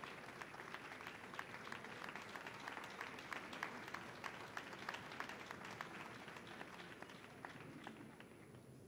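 Crowd applauding with many hands clapping, dying away near the end.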